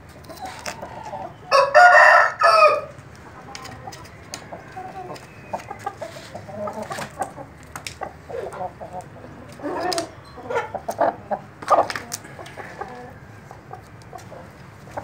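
A rooster crows once, loudly, about two seconds in. Chickens then give short clucking calls on and off, with small clicks between, busiest about ten to twelve seconds in.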